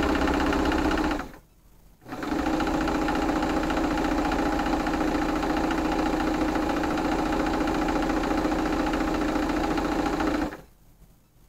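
Electric sewing machine stitching fabric with a steady hum. It stops briefly a little over a second in, starts again and runs evenly, then stops shortly before the end.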